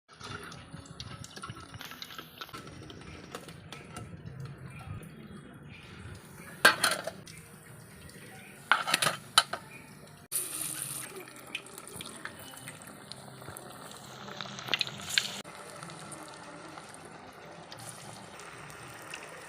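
Banana-flower lentil vadai deep-frying in hot oil with a steady sizzle. A metal ladle clinks against the pan a few times.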